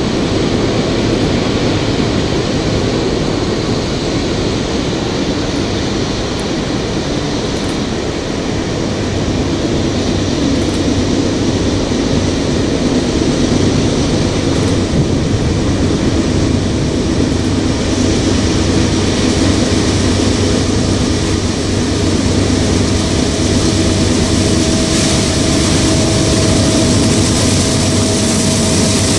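Norfolk Southern freight train passing, a loud steady rumble of cars rolling on the rails. In the last third a deeper engine hum and a steady tone build in over it.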